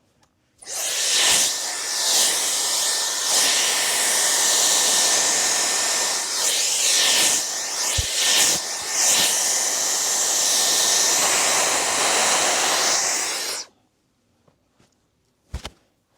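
Handheld hair dryer blowing hard for about thirteen seconds, its rush of air shifting as it is moved about. It starts about a second in and switches off suddenly, followed by a single short knock near the end.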